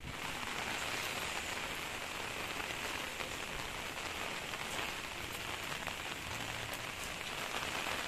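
Steady rainfall on a wet concrete rooftop, a constant hiss with scattered faint ticks of single drops.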